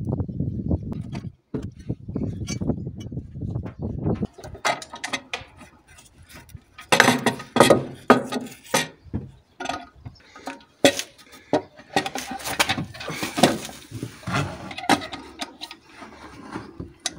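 Metal clinks, clicks and rattles of tools and timing-chain parts being handled on a 1.3 Multijet diesel engine, as the crankshaft bolt is undone and the chain is taken off. A low, rough noise runs through the first four seconds or so, briefly cutting out near the start.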